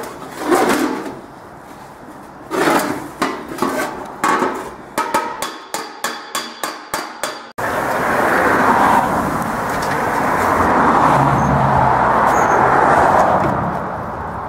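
Hammer striking the dented steel body panel of a 1959 Vespa scooter to beat out dents: a few separate blows, then a quick run of ringing metallic strikes about four a second. About halfway through the sound cuts suddenly to a loud, steady rushing noise.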